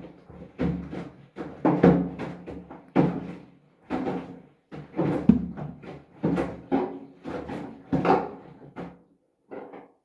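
Hoover front-loading washing machine in the wash cycle, its drum tumbling wet mop heads and a bath mat through the water, which slosh and thud about once or twice a second over a low motor hum. The drum stops about nine seconds in.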